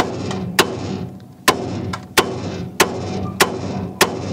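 Hammer blows on a pickle-fork tie rod separator wedged into the front suspension's tie rod joint: seven sharp strikes at an even pace, about one every two-thirds of a second, working to pop the joint apart.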